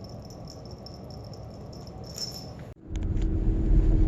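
A low, steady rumble with a faint rattling jingle repeating several times a second. About three-quarters of the way through it cuts off abruptly, and the much louder engine and road noise of a car being driven takes over, heard from inside the car.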